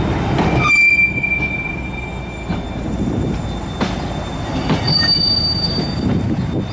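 Loaded freight hopper wagons rolling past, their steel wheels rumbling and clanking over the rails. The wheels give a high squeal about a second in and again near five seconds as they run through the turnout into the siding.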